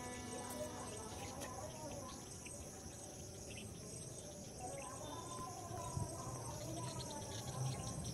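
A steady, high-pitched chorus of insects such as crickets shrilling.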